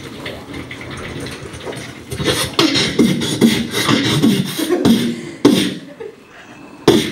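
Beatboxing into a handheld microphone: rhythmic drum sounds made with the mouth, mixed with short pitched vocal sounds, with a couple of sharp loud hits near the end.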